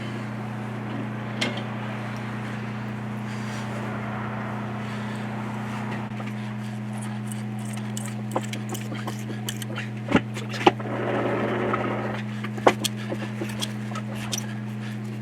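A steady low hum throughout. In the second half come scattered sharp metal clicks and knocks from hand tools on metal, with a short scraping rasp about two-thirds of the way in.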